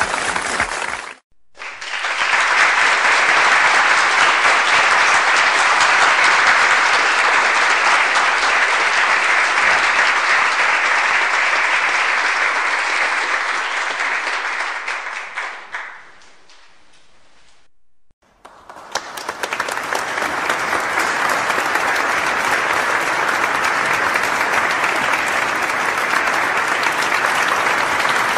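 Crowd applause sound effects, several clips in a row: a long stretch of dense clapping fades out just past the middle, then after a brief silence another burst of applause starts and runs on.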